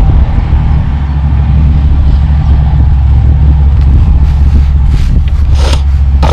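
Wind buffeting the microphone: a loud, steady low rumble, with a couple of brief knocks near the end.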